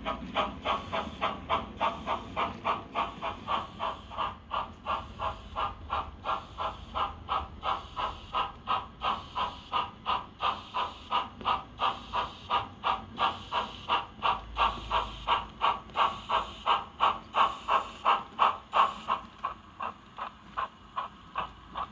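Sound-fitted OO gauge model of a Bulleid Q1 0-6-0 steam locomotive playing rhythmic steam exhaust chuffs through its small speaker, at about three beats a second. The beats grow louder toward the end, then soften.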